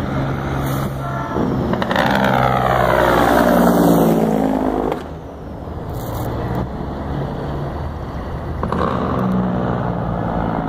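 Semi-truck tractor's diesel engine and tyres passing close by: the sound builds, its pitch lines sweep up and down as it goes past, and it drops off suddenly about five seconds in. A quieter, steadier engine sound follows.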